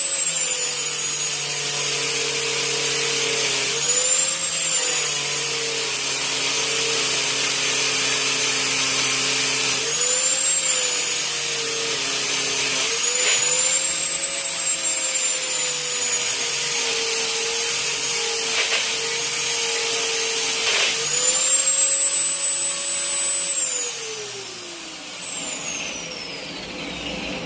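Electric grinder running at high speed, its whine dipping in pitch as it bites into the steel and rising again as it lifts off, several times over: grinding out a weld spot. Near the end it is switched off and spins down with a falling whine.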